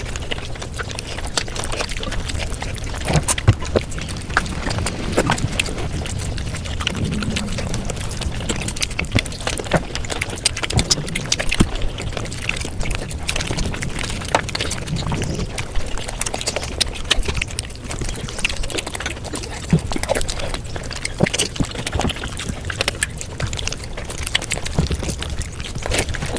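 Close-miked eating sounds played back at high speed: continuous rapid chewing and mouth noises with many short, sharp clicks and crunches.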